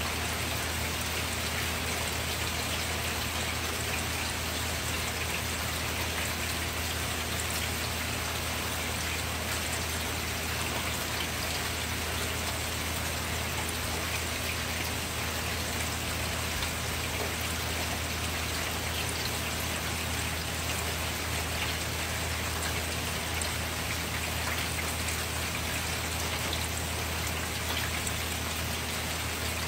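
Steady rain falling at night, a constant hiss of many small drop patters, over a steady low hum.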